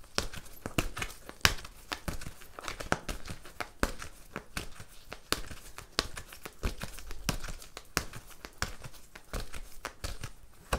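A deck of oracle cards being shuffled by hand: a long run of quick, irregular card clicks and rustles.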